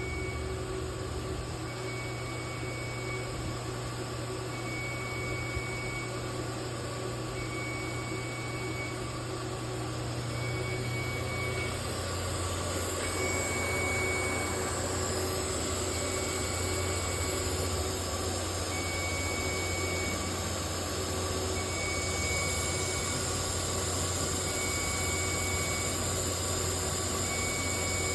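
CNC router machine running with a steady motor hum and a short electronic beep repeating about every three seconds. About twelve seconds in, the hum shifts lower and a high whine grows louder.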